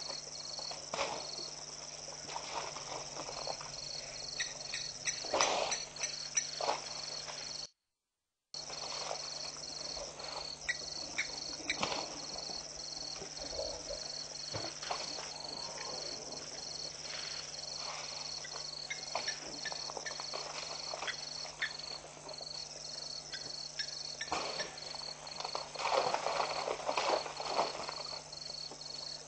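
Waterhole ambience: soft, irregular scuffing and splashing from African elephants working wet mud and water at the water's edge, over an insect chirping steadily about twice a second and a faint steady hum. The scuffs and splashes grow louder near the end, and the sound cuts out completely for under a second about 8 seconds in.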